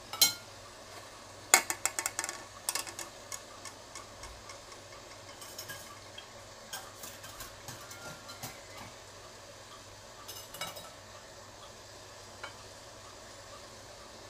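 Metal clatter of a wire-mesh strainer and an aluminium baking tin being handled and set in place on a steamer pot. There is a sharp knock at the start and a quick run of rattling clinks a second or two in, then lighter scattered taps and clicks.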